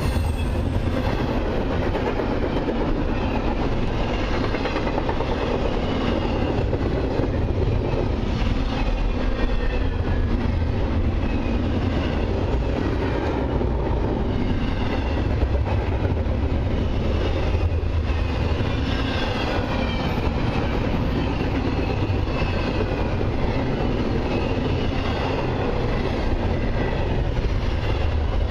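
Double-stack intermodal freight train's container well cars rolling past, steel wheels running steadily on the rails. Faint high-pitched squeals come and go throughout.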